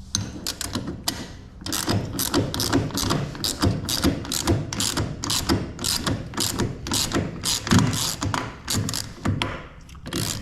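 Socket ratchet clicking through repeated back-and-forth strokes, tightening the bolt of a new caster wheel on a rolling toolbox.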